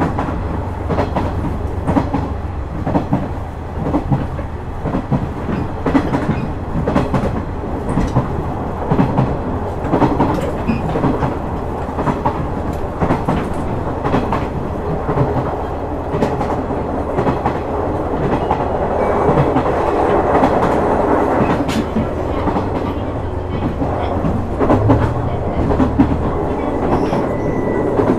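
Inside a KiHa 126 series diesel railcar as it runs: a steady low engine drone under rhythmic rail-joint clicks. A little past halfway the train makes an emergency stop, and a noisier braking sound swells for several seconds.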